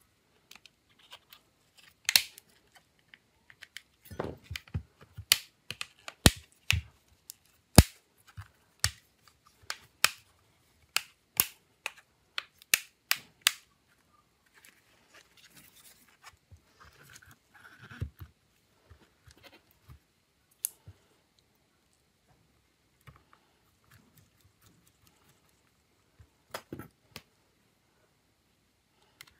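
Irregular sharp clicks and taps of small hard plastic parts being handled while working on an Acer Iconia B1-723 tablet. They come thick and fast for the first half, then thin out to a soft scraping and a few scattered clicks.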